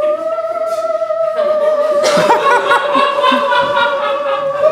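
A sustained, slightly wavering theremin-like tone held at one pitch as a music cue, with audience laughter breaking out about a second and a half in.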